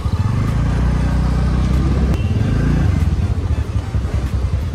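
Motor scooter engine running under way, its pitch rising twice as it speeds up and then settling to a steadier hum about three seconds in.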